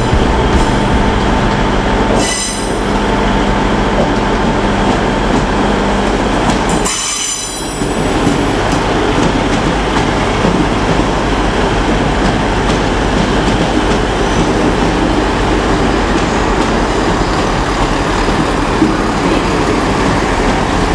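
Diesel multiple-unit trains, a Class 158 and a Class 222 Meridian, moving through a station: steady engine and rail noise, with brief high wheel squeals about two and seven seconds in.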